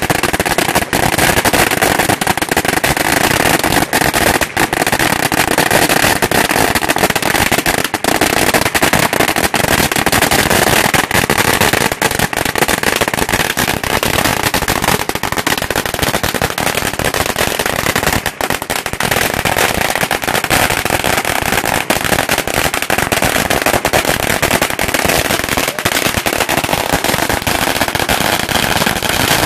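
A 16,000-firecracker string burning down, its crackers going off in a continuous, rapid crackle of bangs with no break.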